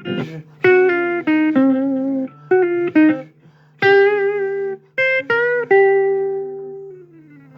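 Guitar playing a blues phrase of single plucked notes, the last note held long and sliding down in pitch near the end, over a steady low hum.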